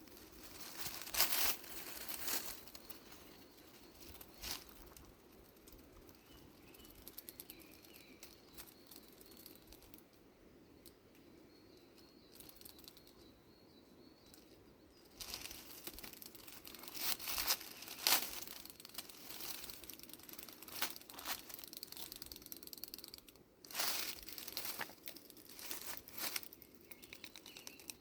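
Dry leaves and undergrowth rustling and crackling in irregular spells, loudest about a second in and again through the second half, with faint bird chirps now and then.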